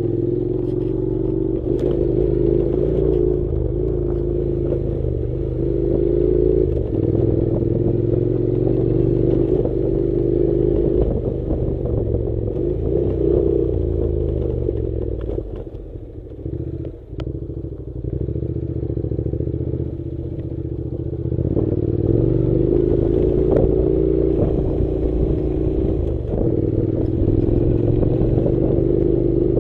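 Honda NC700's parallel-twin engine running as the motorcycle rides off-road, with occasional knocks. The engine note drops for several seconds past the middle, then picks up again.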